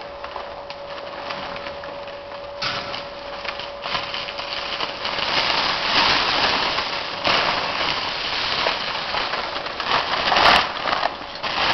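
Sawdust pouring from a hopper's discharge into a plastic-lined bulk bag: a steady hiss and patter that starts about two and a half seconds in and grows louder. A faint steady machine hum sits under the start, and there is one short sharp noise near the end.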